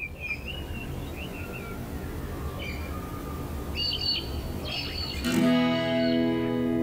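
Small birds chirping now and then over a low background rumble, then about five seconds in a guitar chord is strummed and left ringing.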